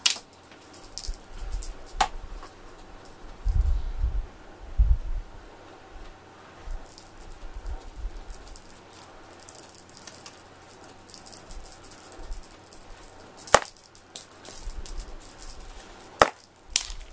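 Cat teaser wand being waved and shaken, making light, high-pitched rattling and jingling, broken by a few sharp clicks and some low knocks from handling.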